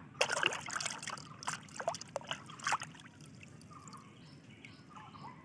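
Water splashing and trickling in quick, irregular bursts for about three seconds, then stopping.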